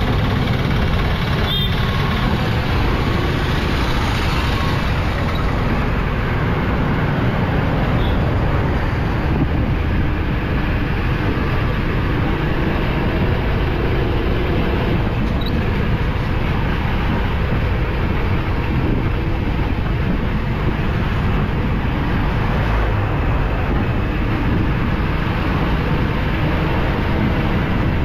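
Steady road traffic noise heard while driving through town: vehicle engines and tyres on the road, with no break or sudden event.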